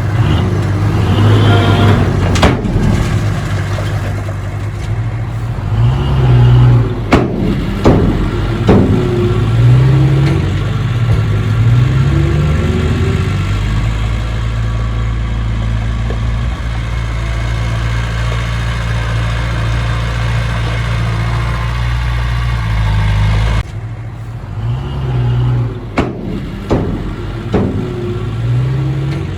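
Diesel engine of heavy earthmoving machinery running and revving under load, its pitch rising and falling again and again, with a few sharp knocks. The sound changes abruptly about 24 seconds in.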